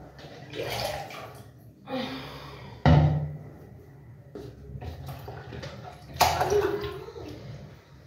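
Water splashing in several separate bouts as a face sponge is dipped into water to soften it, with a sudden knock about three seconds in.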